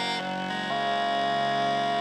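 Gajde, the Serbian bagpipe, playing an instrumental melody: long held notes over a steady drone, moving to a new note a little under a second in.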